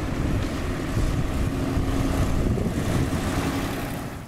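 Diesel engine of a self-loader truck hauling an excavator, running with a steady low rumble and hum as the truck drives past close by, with wind on the microphone. The sound fades away near the end.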